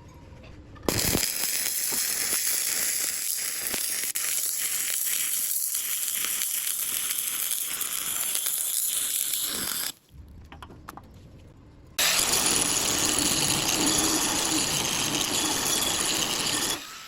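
Electric stick-welding arc crackling and sizzling in two long runs, the first about nine seconds and the second about five, with a break of about two seconds between them.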